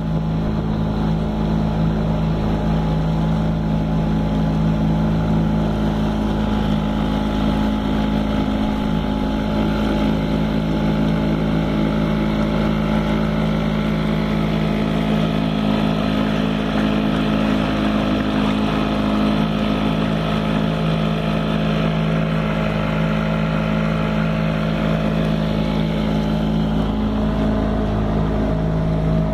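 Suzuki DT3.5 two-stroke outboard motor running steadily, pushing a small boat along.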